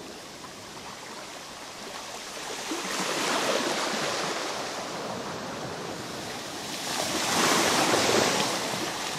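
Sea waves washing in, a steady rush that swells twice: about three seconds in and again near the end.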